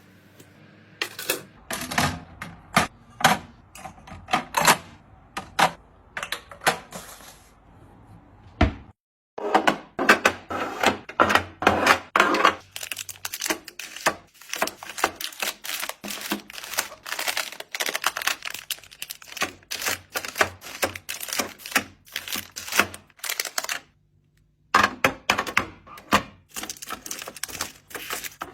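Quick, sharp taps and clicks of small items being handled and set down one after another, a fast irregular clatter that stops briefly about nine seconds in and again about twenty-four seconds in.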